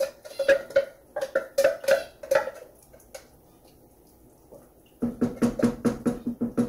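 Metal tapping and clinking against a stainless steel cooking pot as coconut milk is emptied from its can. A run of sharp, ringing taps lasts about two and a half seconds, then after a pause comes a faster run near the end.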